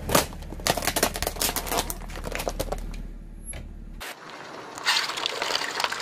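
Car tyre rolling over a plastic tub of laundry detergent capsules: dense crackling and crunching over a low rumble. About four seconds in the sound cuts off abruptly, then the tyre crushes paper cups of water beads with more crackling and crunching.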